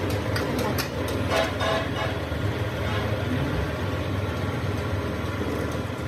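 Steady low hum of workshop machinery, with a few light metal clinks and knocks in the first two seconds as the steel axle shaft is handled on its roller V-blocks.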